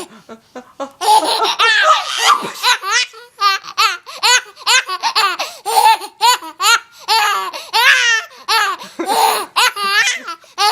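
A baby boy laughing hard in quick, repeated high-pitched bursts. After a short pause at the start, the laughter runs almost without a break.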